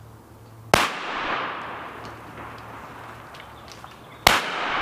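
Two shotgun shots about three and a half seconds apart, the first less than a second in and the second near the end, each followed by a long echo that fades over a second or more.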